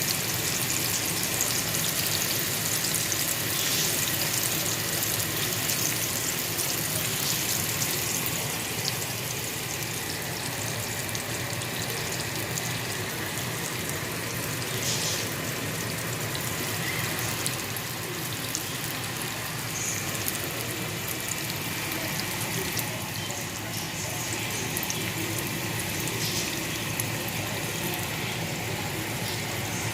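Green tomato slices frying in hot oil: a steady sizzle with scattered small pops and crackles.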